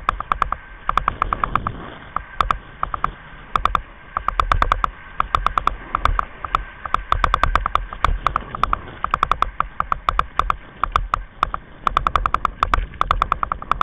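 Kite buggy running fast over hard beach sand: a low rumble of wind and rolling tyres, broken by repeated bursts of fast rattling clicks as the buggy shakes over the sand.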